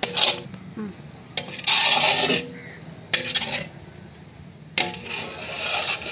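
Flat metal spatula scraping thick, grainy kalakand mixture across a large iron pan in several strokes, with sharp clinks of metal on metal about every second and a half.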